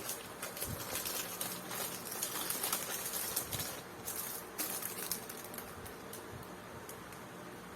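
Faint rustling with scattered light clicks and taps, the sound of model-kit parts and packaging being handled.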